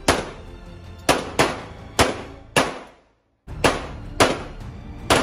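Handgun shots fired in quick strings, about eight sharp cracks each with a short ringing tail, spaced roughly a third of a second to a second apart. The sound drops out completely for a moment about three seconds in.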